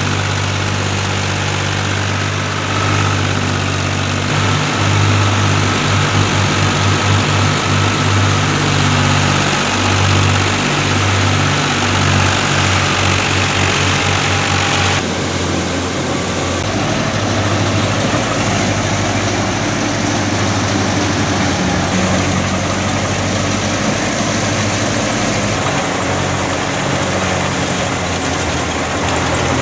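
New Holland Al-Ghazi 65 hp tractor's diesel engine running steadily, heard close up. About halfway through the sound changes abruptly to the steady running of the tractor-driven wheat threshing machine.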